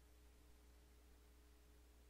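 Near silence: a faint steady low hum under light hiss.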